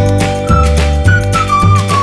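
Background music: a high, sliding melody over a steady bass line and a regular beat.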